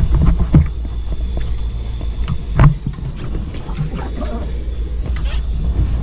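Steady low rumble on a boat deck, with scattered knocks and water splashes as a hand gropes in a water-filled live well for webfoot octopus; one loud thump about two and a half seconds in.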